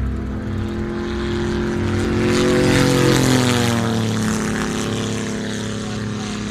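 Single-engine propeller fighter plane making a low pass overhead. The engine's drone swells to its loudest about three seconds in, then drops in pitch as the plane passes and moves away.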